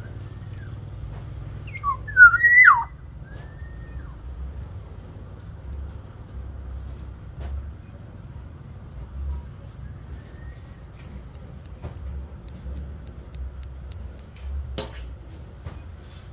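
Black-naped oriole giving one short, loud fluting whistled phrase about two seconds in, with a couple of fainter whistled notes just before and after. A low steady rumble runs underneath, and a single sharp click comes near the end.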